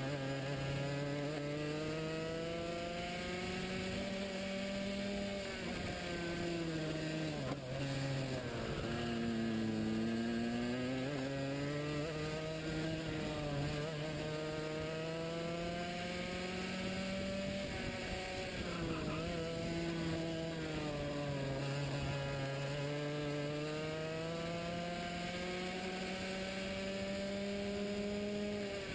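Racing kart engine heard onboard, revving hard and rising and falling in pitch lap-style: the note drops deeply as the kart brakes for corners, about a quarter of the way in and again a little past halfway, then climbs back as it accelerates out.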